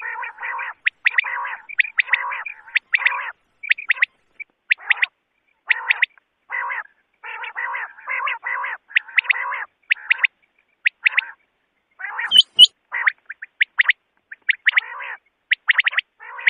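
Quail calls played as a hunting lure, repeating over and over: quick clusters of sharp high notes mixed with rougher chattering calls. There is one sharp click about twelve seconds in.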